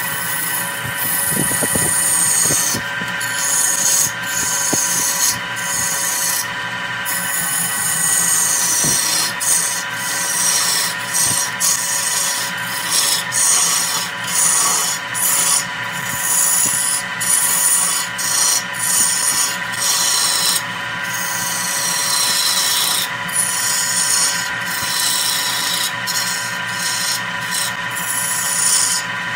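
A wood lathe spinning a redwood vase blank while a hand-held gouge cuts it: a steady hissing, scraping cut with wavering high squealing tones, breaking off briefly many times as the tool leaves the wood, over the lathe's steady hum.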